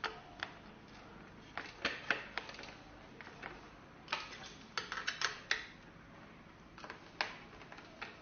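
Irregular sharp clicks and taps of a spanner and screwdriver on metal screws and nuts as they are tightened on the base of a Dyson vacuum docking stand, busiest about halfway through.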